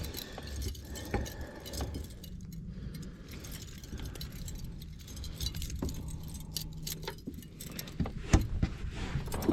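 Light clinking and rattling of gear being handled on a fishing boat: many small clicks and knocks, a few sharper ones near the end. A steady low hum runs through the middle.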